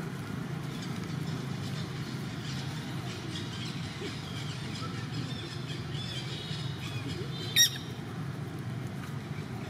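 A macaque gives one short, sharp, high-pitched squeal about seven and a half seconds in. Faint high chirps come and go over a steady low hum.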